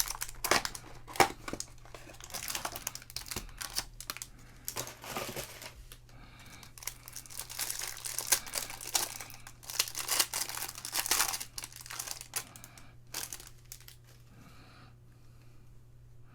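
Trading card pack wrappers being torn open and crinkled by hand, in repeated bursts of crackling that die down near the end.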